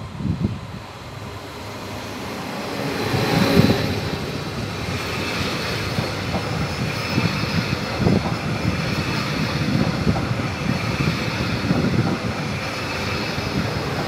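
Stadler FLIRT electric multiple unit (ETR 170) running close past along the platform. Its running noise builds over the first few seconds and then holds steady, with a few short knocks from the wheels and rails.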